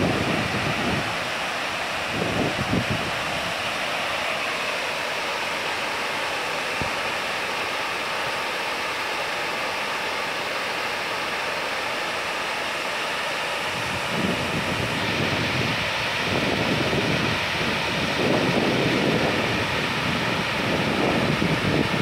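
Swallow Falls, a broad waterfall cascading in many streams over rock, rushing steadily. Wind buffets the microphone in low gusts at the start and through the last third.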